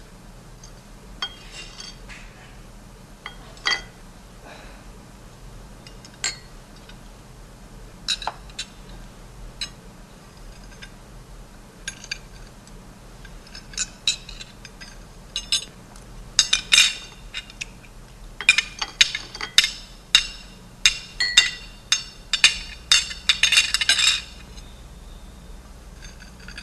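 Cutlery clinking against plates and glasses at a dinner table: scattered clinks at first, then a quick run of loud clattering from about two-thirds of the way in that stops abruptly.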